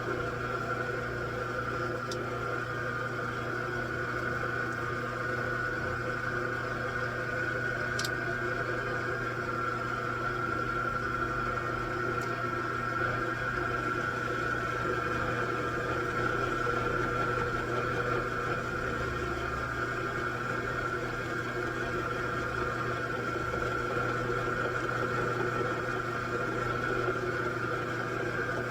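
Metalworking machine tool running steadily, a constant mechanical drone with a high whine, during a cut. A single sharp tick comes about eight seconds in.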